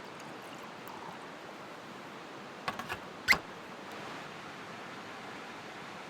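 Steady rushing outdoor noise with a few sharp clicks: three small ones a little before three seconds in, then one much louder click just after.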